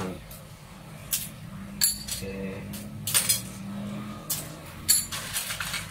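Kitchen scissors snipping the hard pointed tips off siput sedut (mangrove snail) shells. There are several sharp crunching clicks, roughly a second apart, with shells clinking against a metal bowl.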